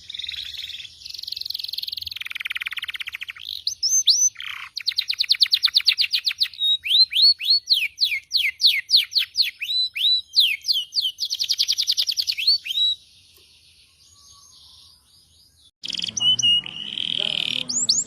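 Domestic canary singing a long, rapid song: buzzy rolls, fast trills and runs of quick rising whistled notes. It pauses about two-thirds of the way through and starts again near the end.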